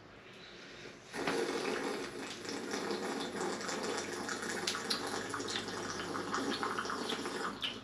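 Hot tea being slurped from china teacups in one long continuous sip starting about a second in, a wet sucking hiss flecked with small crackles.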